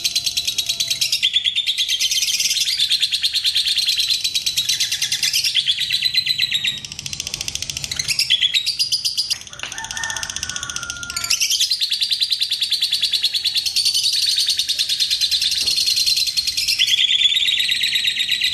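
Fischer's lovebird singing a long 'ngekek' chatter: a very fast, high, rattling run of notes, nearly unbroken, with a short dip about halfway through.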